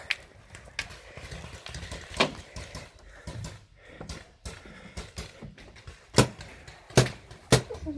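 Sharp knocks and clatter of a person climbing and moving on the wooden plank floor of a plywood bunker, a few scattered hits with the two loudest about six and seven seconds in.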